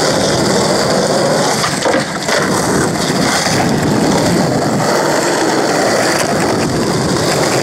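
Skateboard wheels rolling over rough asphalt, a steady grinding rumble with a couple of light knocks from the board.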